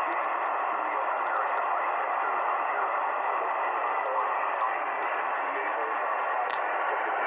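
Steady hiss and static from a shortwave receiver tuned to a single-sideband amateur-radio channel, held within the receiver's narrow voice passband, with a few faint clicks and no station readable.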